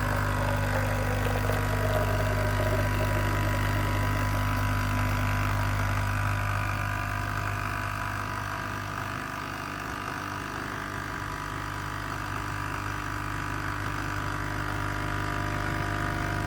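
Nescafé Dolce Gusto capsule coffee machine's vibration pump buzzing steadily as it pushes hot water through a capsule during a brew, dipping a little in level partway through.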